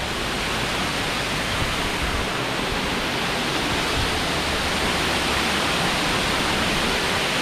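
Small waterfall's water falling and rushing steadily, an even, unbroken hiss of water.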